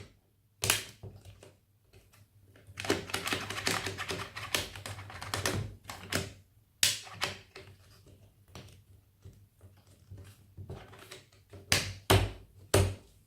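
Irregular plastic clicks, taps and scraping as the bottom of a laptop screen panel is wiggled side to side and worked free of its plastic clips, with a couple of sharper knocks near the end.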